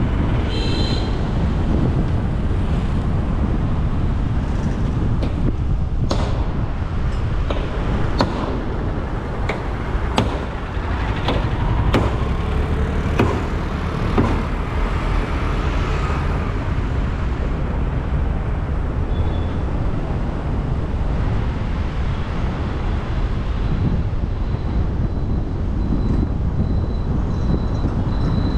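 Wind rumbling on the microphone and road noise from a moving vehicle in city traffic, with a scatter of short clicks in the middle.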